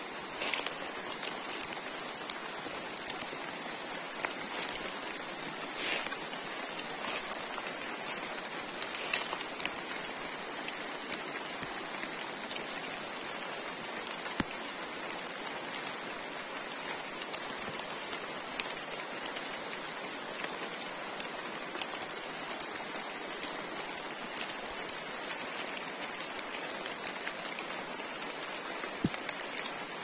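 Rain falling and dripping on rainforest foliage and leaf litter, under a steady high-pitched drone. Two short rapid trills sound, about three seconds in and again about twelve seconds in, with a few sharp ticks in the first ten seconds.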